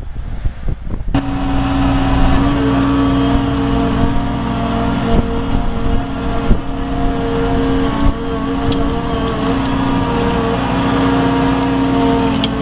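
Wind noise for about the first second, then an abrupt switch to the steady, loud hum of a wheeled excavator's hydraulic slurry-pump attachment and engine as it pumps ditch mud. A few sharp clicks rise over it.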